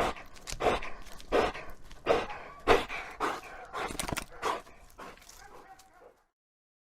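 Dog panting in a steady rhythm of about one and a half breaths a second, fading and stopping about six seconds in.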